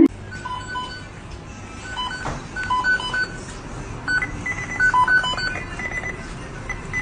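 A series of short high beeps at a few different fixed pitches, coming in irregular clusters over a low background hum.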